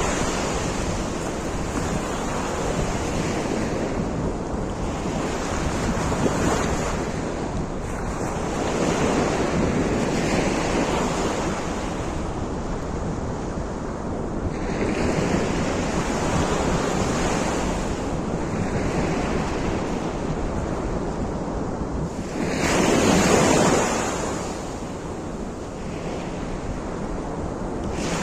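Sea surf washing against a rocky shore in rough water, with gusts of wind on the microphone. The rush swells and ebbs every few seconds, and one louder wave surge comes late on.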